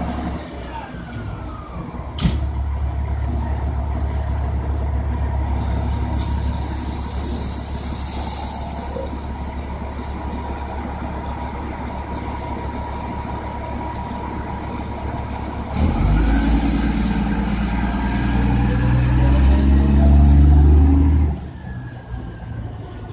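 Diesel fire truck engine running, then a louder fire truck revving up and pulling away about two-thirds of the way through. Its engine rises in pitch and is loudest just before it cuts off abruptly near the end.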